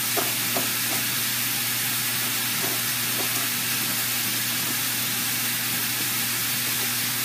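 Sausage sizzling in a frying pan on a gas stove, a steady even hiss. In the first few seconds there are a few light scrapes of a fork pulling strands from a roasted spaghetti squash.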